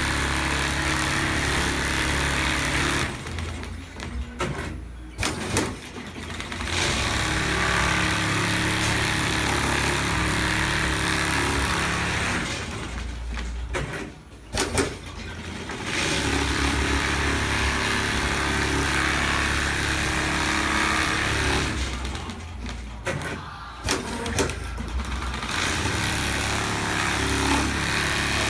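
Programmable automatic pattern sewing machine stitching quilted fabric at speed, a steady mechanical running noise. It stops three times for a few seconds each, with a few sharp clicks in the pauses.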